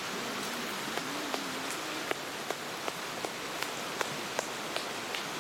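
Steady rush of a mountain stream, with scattered light clicks and ticks on top.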